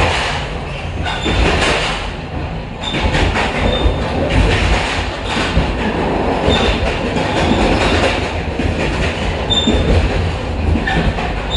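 Old metal train running fast on the rails: a steady rumble and rattle, with short high-pitched squeaks every few seconds.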